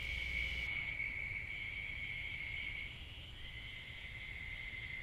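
Steady high-pitched trill of night insects, fading briefly about three seconds in.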